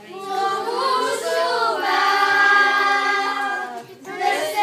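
A group of children singing together unaccompanied, with a brief break near the end before the voices come back in.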